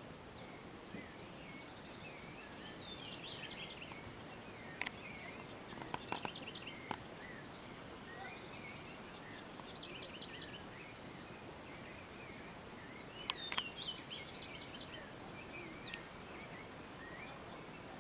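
Birds chirping, with short rapid trills repeating every few seconds, over a steady outdoor hiss. A few sharp clicks stand out, the loudest a close pair about two thirds of the way through.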